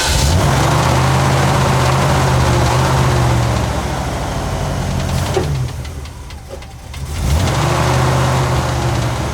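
Ford 400 V8 of a long-stored 1980 F-350 running rough just after being restarted. About five and a half seconds in its speed sags almost to a stall, then it picks up again about seven seconds in.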